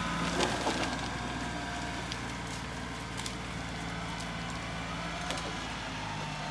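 LS XR3135 compact tractor's diesel engine running steadily. A few sharp clicks or cracks come about half a second in.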